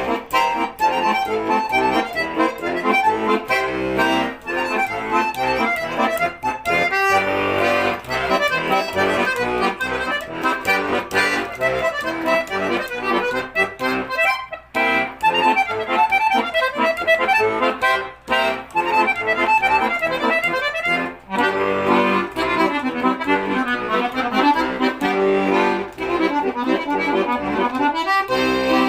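Yasnaya Polyana bayan, a Russian chromatic button accordion with one-piece (solid) reed plates, being played: a tune with several notes sounding together, with short breaks a few times.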